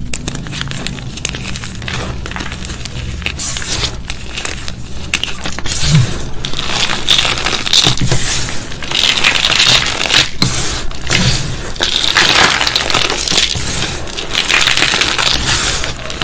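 Crunchy gym chalk loaded with glitter being crushed, a dense crunching and crackling that grows heavier about six seconds in.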